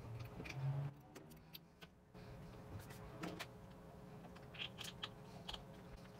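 A few light clicks and taps, scattered and irregular, over a faint steady low hum.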